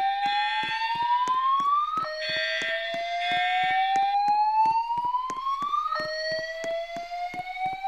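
A school's voice-evacuation fire alarm sounding its whoop tone between spoken announcements. Each tone rises slowly for about four seconds and then drops back to start again, so it resets about two seconds in and again near six seconds. A rapid, even clicking runs alongside, about three clicks a second.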